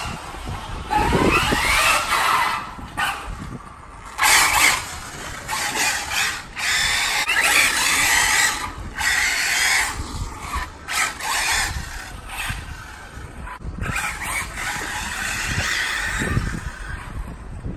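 Arrma Typhon radio-controlled car's electric motor whining in repeated bursts of throttle, with tyre noise on the paving and tarmac; the whine rises in pitch about a second in.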